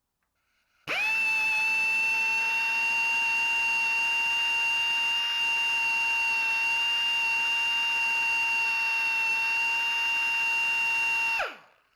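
Air die grinder running at full speed with a steady high-pitched whine. It starts about a second in and cuts off shortly before the end, its pitch dropping as it winds down.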